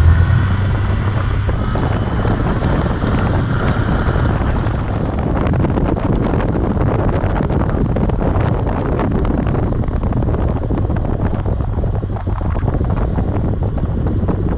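Wind rushing over the microphone, with a 1981 Honda CB750 Custom's four-cylinder engine running underneath as the motorcycle rides along.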